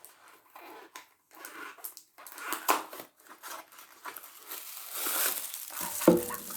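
A plastic blind-bag packet crinkling and tearing as it is opened by hand, in irregular crackles that grow denser in the second half, with one louder knock about six seconds in.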